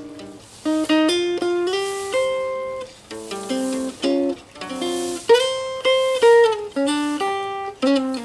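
Background music: a plucked string instrument picking a lively melody of single notes, each note starting sharply and fading.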